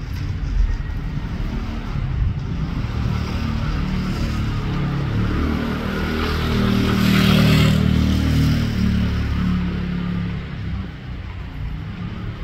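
A motorcycle passes close by, its engine growing louder to a peak about seven seconds in, then fading away.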